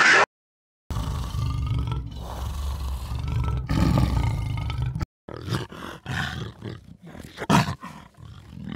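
Creature sound-design textures built from layered animal snarls, played back. First comes about four seconds of continuous low, rumbling snarl. After a brief break come separate, shorter growls, the loudest near the end.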